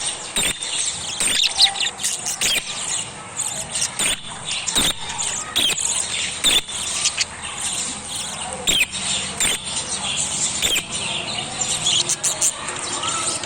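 Young parrots chirping and squeaking in short, high calls, mixed with frequent sharp clicks.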